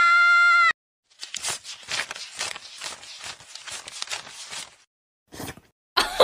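Paper banknotes flicked through by hand, a run of crisp papery snaps about three a second that stops near the end. A steady held tone cuts off abruptly just before the snaps begin, and laughter starts right at the end.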